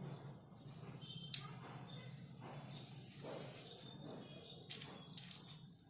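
Marker pen squeaking and scratching on a whiteboard as straight lines are drawn, in short strokes, over a low steady hum.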